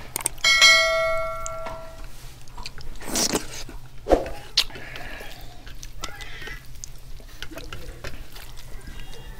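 A bell-chime sound effect strikes about half a second in, ringing several tones at once and fading over about a second, as a subscribe-button animation plays. After it come soft wet squishes and clicks of a hand mixing rice and dal on a steel plate.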